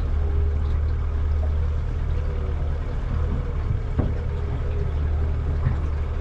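Boat's engine running with a steady low drone, and a single sharp knock about four seconds in.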